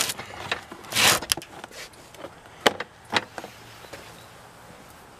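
The hard plastic top cover of a Predator 3500 inverter generator being handled and set down on the frame. A short scrape comes about a second in, then a few sharp plastic knocks, the last a little past three seconds in.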